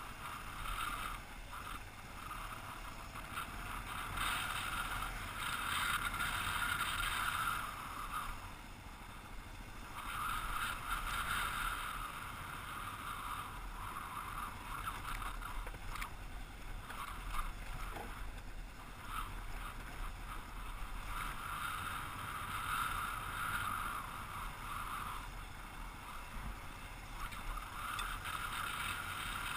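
Kawasaki KLR single-cylinder dual-sport motorcycle running as it rides a rough dirt road, swelling and easing in waves, with wind on the helmet-mounted microphone.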